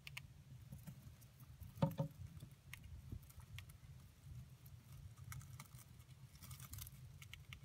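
Roborowski hamster gnawing and nibbling at a woven carrot-shaped chew toy: faint scattered crackles and clicks, with one louder knock about two seconds in, over a low steady hum.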